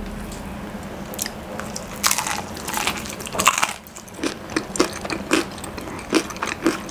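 Biting into the crispy breading of Popeyes fried chicken with a loud crackling crunch, twice, then chewing it in a steady rhythm of about three chews a second.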